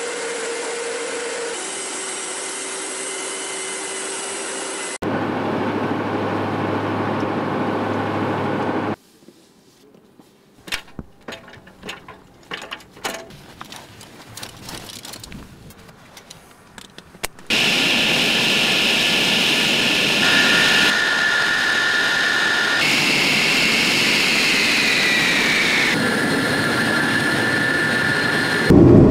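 MiG-31 jet engine noise that changes abruptly several times: steady noise with high whining tones, then a much quieter stretch of scattered clicks and knocks from about nine seconds in, then the twin D-30F6 turbofans running loud with a high whine, one tone of which falls in pitch near the end.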